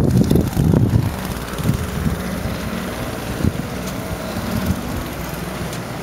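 Wind buffeting the camera microphone outdoors in heavy snow, gusting hardest in the first second, then a steadier low rumble.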